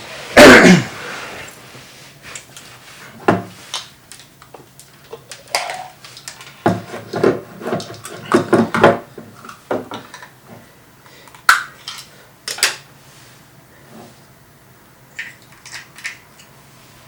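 Small hard objects being rummaged through and handled, with irregular clicks, knocks and rattles. A loud scraping knock comes about half a second in.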